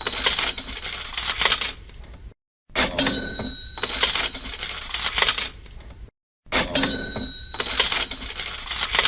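Cash register sound effect on a loop: a bell ding followed by coins jingling and clattering. The cycle starts over twice, about three seconds in and again about six and a half seconds in, each time after a brief silence.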